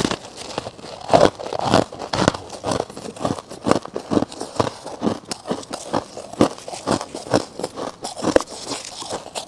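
Freezer frost being bitten and chewed close to the microphone: a steady run of crunches, about two to three a second.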